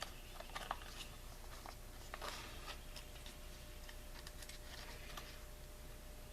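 Faint, scattered clicks and light scraping as the chainsaw's recoil starter rope and pulley are handled, over a low steady hum.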